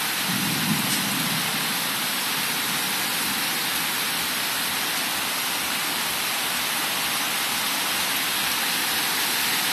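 Heavy rain pouring down in a thunderstorm downpour, a steady, even hiss.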